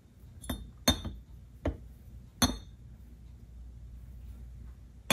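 Metal carburetor body clinking sharply against a surface plate as it is pressed and set down, four clinks in the first two and a half seconds and one more near the end. It is a check that the freshly lapped flange now sits flat without rocking.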